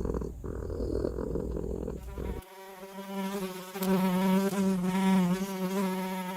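Buzzing like a flying insect, a sound effect in an animated channel intro: a dense low rumble for about two seconds, then a steady buzz whose pitch wavers slightly.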